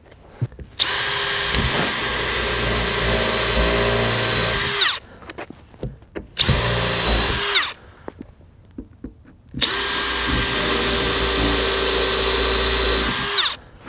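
Cordless drill spinning a countersink bit into Skate-lite over plywood: three runs, a long one, a short one and another long one, each winding down in pitch as the trigger is released. The bit has no carbide tips, so it cuts slowly and is already smoking and burning.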